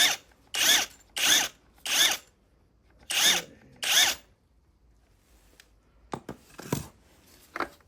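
Power drill or driver run in six short bursts, each spinning up and down, as bolts are worked on the motorcycle. After that come a few faint clicks and knocks.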